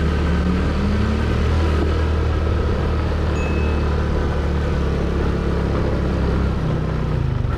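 Motorcycle engine running steadily while riding, with wind and road noise; the engine note drops near the end.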